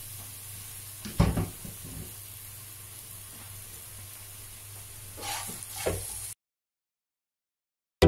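Chopped onions sizzling in oil in a frying pan, with one sharp knock about a second in. The sound cuts off suddenly about two seconds before the end.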